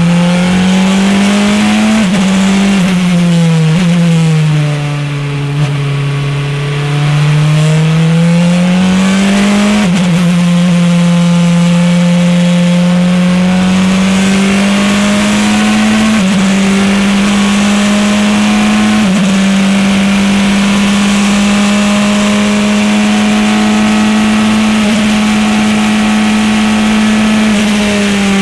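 Praga R1T race car's engine heard from inside the cockpit under hard acceleration. It eases off briefly, quieter and lower, about five seconds in, then pulls up through the gears with quick upshifts at about ten, sixteen and nineteen seconds, and holds high revs near the end.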